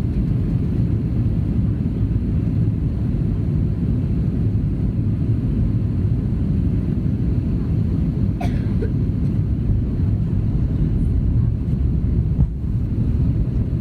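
Airbus A330-300 airliner heard from inside the cabin: a steady low roar of engine and airflow noise.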